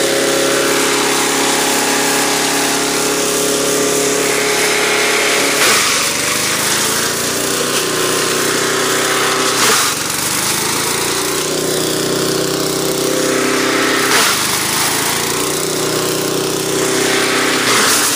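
Small gas engine of a chipper-shredder running steadily while cod racks are fed through and ground into chum. About every four seconds a loud crunch comes as a piece goes in, and the engine bogs down under the load and then picks back up; this happens four times, the last near the end.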